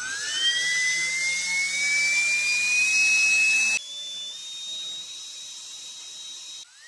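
Small 90 mm 3D-printed electric ducted fans, brushless-motor driven, running on a thrust stand. The first fan gives a high whine that climbs steadily in pitch for about four seconds as it spools up. It cuts off suddenly to another fan whining steadily at a higher, quieter pitch, and near the end a new rising whine begins.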